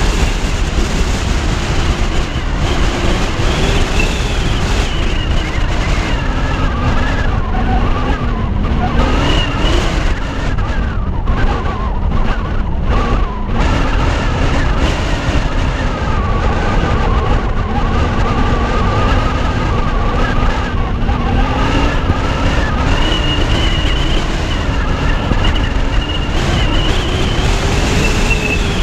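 Car driving along a road, heard from a camera mounted on its roof: a steady rumble of wind and road noise, with an engine hum that slowly rises and falls in pitch.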